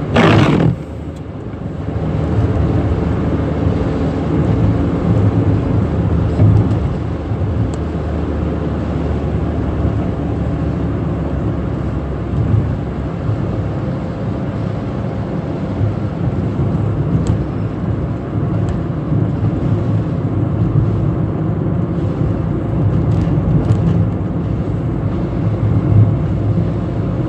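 Steady engine and road noise inside a Ford Fiesta's cabin while driving, with a brief loud rush in the first second.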